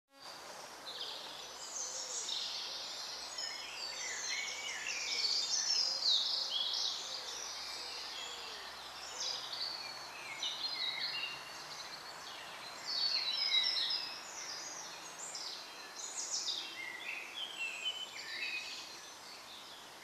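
Woodland birdsong: several songbirds singing at once, a dense tangle of quick, high phrases and trills that thins out near the end.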